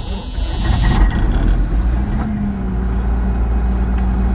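John Deere 6620 combine running at work harvesting soybeans: a steady low engine drone, with a hissing rush through the first second.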